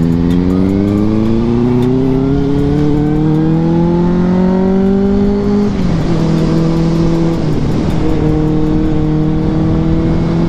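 KTM 390 Duke's single-cylinder engine, heard from the rider's seat, accelerating hard with its pitch rising steadily for about five seconds, then dropping sharply at an upshift and pulling on again at a steadier pitch.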